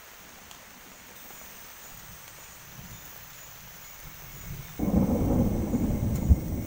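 Thunder: a faint low rumble grows, then a loud peal breaks about five seconds in and rumbles for under two seconds, with a sharp crack near its end.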